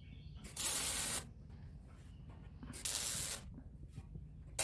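Two short bursts of arc welding on steel, each about two-thirds of a second long: the crackling hiss of tack welds fixing a small ash-pan frame into a fire pit.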